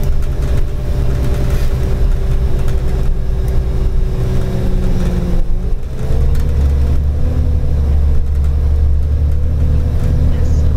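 New Flyer D40-LF diesel city bus heard from inside the passenger cabin: a steady low engine and drivetrain rumble with a whine. The whine sags slowly, then a little past halfway glides up to a higher steady pitch as the rumble grows stronger, the bus pulling harder.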